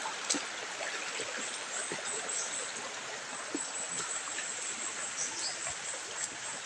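Shallow stream running over rocks, a steady rushing of water, with a few faint knocks scattered through it.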